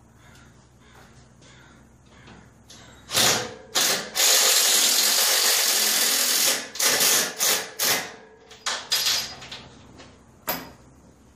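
Power drill working through aluminum diamond plate into the steel trailer frame to fasten it down with self-drilling tech screws. A short burst about three seconds in, a steady run of about two and a half seconds, then several short trigger pulls.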